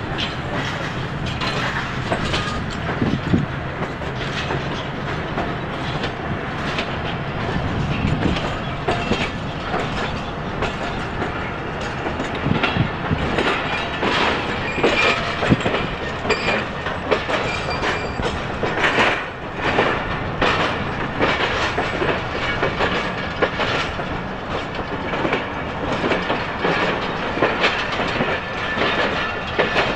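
Tezgam Express passenger coaches rolling past as the train departs. The wheels clack over rail joints in a steady stream of irregular clicks over a continuous running rumble.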